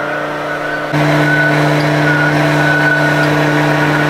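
CNC vertical cylinder-honing machine running as it hones the cylinder bores of a Nissan RB26 block through a bolted-on torque plate: a steady motor hum with a high whine over the grinding noise, louder from about a second in.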